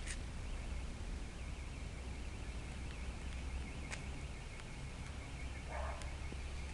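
A steady, high, finely pulsing animal trill over a constant low rumble, with a few faint clicks and a short muffled sound near the end.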